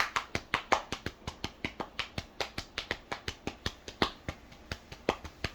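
A child's hands patting their legs: quick, sharp slaps in a fairly steady rhythm of about five a second.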